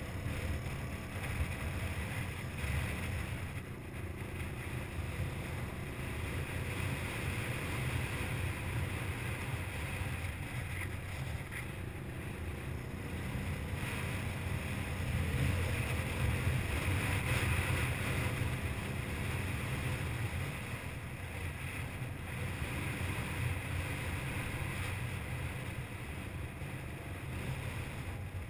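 Suzuki DR200's single-cylinder four-stroke engine running steadily while riding a dirt track, a little louder about halfway through, with wind rushing over the microphone.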